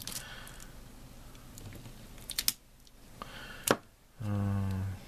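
Light clicks and taps of a small metal spatula and a plastic blister pack on a cutting mat as epoxy putty is cut. Near the end comes a short low steady hum, under a second long and louder than the taps.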